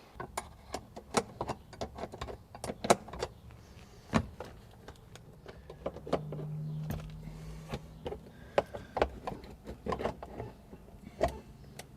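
Irregular sharp clicks and knocks of hands working on small car parts, with a brief low hum about six seconds in.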